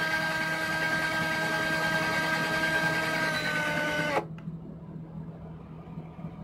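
Cordless drill motor whining steadily as its thin bit drills into the chrome cap of a pop-up sink stopper. About four seconds in the pitch dips slightly and the drill stops abruptly, leaving a faint low hum.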